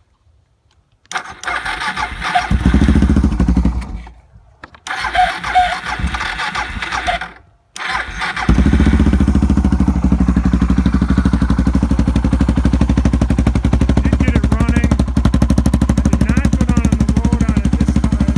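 A 2012 Suzuki DR650's single-cylinder four-stroke engine with a DG aftermarket exhaust being started cold on the choke: two starting attempts about a second and five seconds in each run briefly and die out, then about eight seconds in it catches and settles into a steady, evenly pulsing idle.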